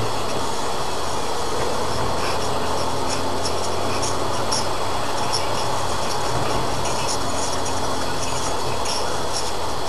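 Steady road and engine noise from inside a moving car, picked up by its dashcam, with a light intermittent rattle in the high end.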